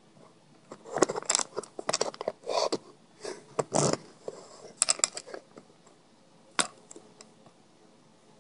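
Handling noise as the camera is fitted onto a tripod: a run of rustles, scrapes and clicks over the first five seconds and one sharp click a little after six seconds.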